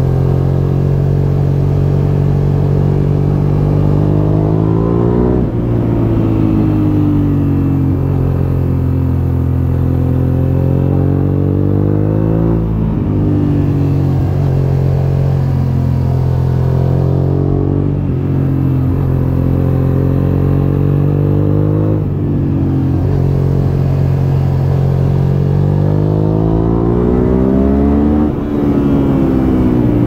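A Suzuki SV650S 645 cc 90-degree V-twin running through an Akrapovic full exhaust system while being ridden hard. The revs climb and fall sharply four times, with steadier running between.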